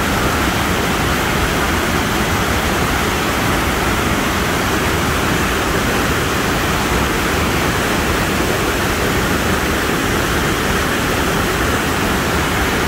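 Niagara River rapids: a steady, loud rush of whitewater pouring over ledges and rocks.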